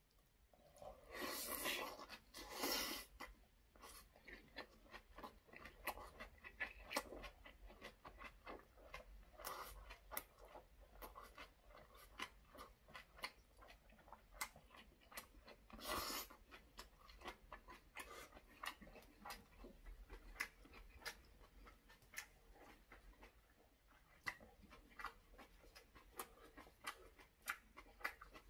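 Faint, close-miked chewing and wet mouth clicks of a person eating a large bite of rice wrapped in braised aged kimchi. There are louder smacking bursts a second or two in and again about halfway.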